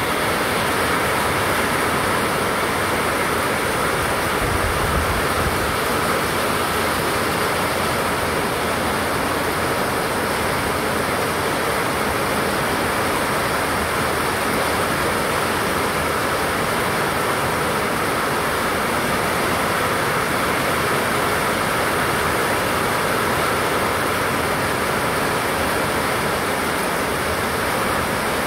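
Heavy downpour: a loud, steady hiss of rain falling on roofs, trees and pavement, with water spilling off a roof edge.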